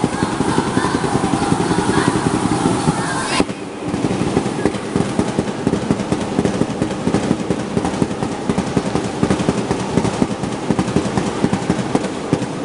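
Fast, loud percussion driving a cheerdance routine, a dense unbroken run of hits that cuts out for a moment about three and a half seconds in.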